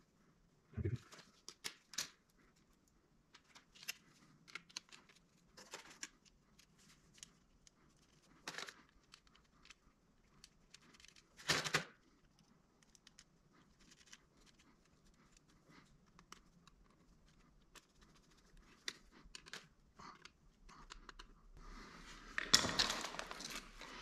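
Faint, scattered clicks and light rustling of hands handling the welder's circuit board and small parts, with one louder short rustle about halfway through and a longer spell of rustling near the end.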